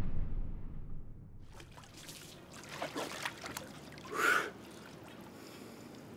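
Water trickling and dripping from a man sitting in a tub of water, with one short, sharp exhale about four seconds in. Before that, the rumbling tail of a breaking wave fades out over the first second or so.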